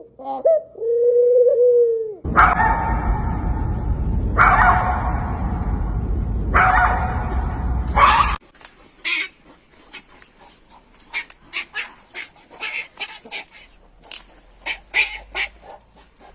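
A dog whining in a drawn-out note that rises and falls. It is followed by several seconds of loud rough noise with a few sharp peaks, then a string of short, quieter yips.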